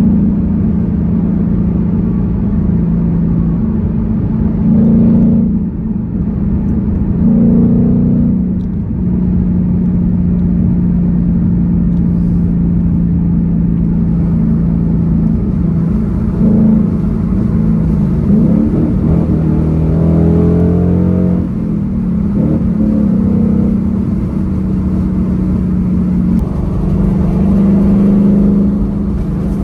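Ford Mustang GT's 5.0-litre V8 running at highway speed with tyre and road noise: a steady drone that swells and steps up in pitch several times as the car accelerates and changes gear, with the busiest stretch of pitch changes about two-thirds through.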